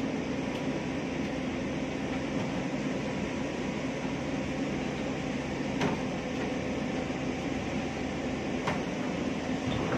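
Caterpillar excavator's diesel engine and hydraulics running steadily while it loads a dump truck, with a few sharp knocks about six and nine seconds in.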